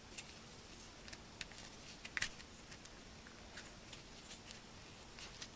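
Faint rustling and small ticks of satin rattail cord rubbing through fingers as a sliding knot on a braided bracelet is worked tight, the loudest tick a little over two seconds in.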